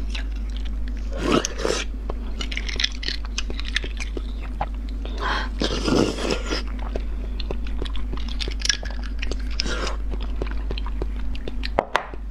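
Close-miked mouth sounds of eating beef bone marrow: wet chewing, sucking and lip smacks with many small clicks, and three louder wet bursts about a second and a half, six and ten seconds in. A steady low hum runs underneath.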